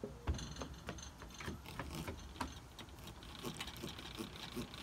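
Stainless-steel pumpkin carving knife sawing through a pumpkin's rind: a run of short, irregular crunching strokes, with a sharper snap just after the start.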